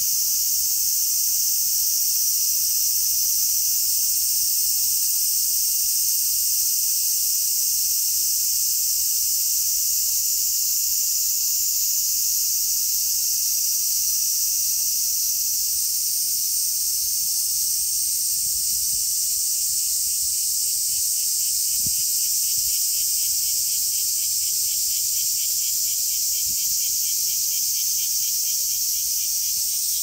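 Cicadas calling in a loud, steady, high-pitched chorus. From about twenty seconds in, a rhythmic pulsing call joins it.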